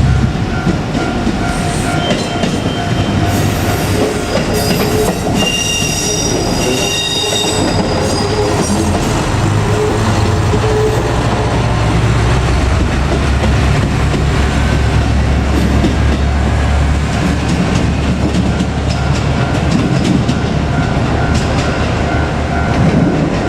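KiHa 200 diesel railcar passing through a level crossing: its diesel engine rumbles and its wheels clack on the rail joints. Brief high squeals come about five to eight seconds in. A repeating level-crossing bell rings at the start and again over the last several seconds.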